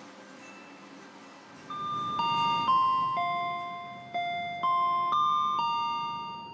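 Electronic public-address chime on a train: about eight bell-like notes in a short melody, starting about a second and a half in, each ringing on and fading as the next sounds. It signals that an announcement is about to be made.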